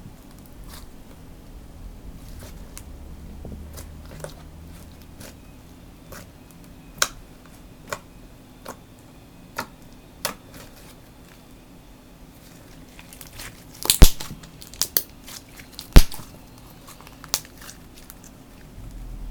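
Fluffy butter slime being squeezed and played with by hand, giving scattered sharp pops and clicks, with a cluster of louder pops near the end.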